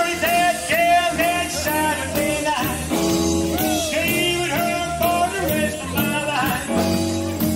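Music: a song with a sung vocal over guitar and a steady drum beat.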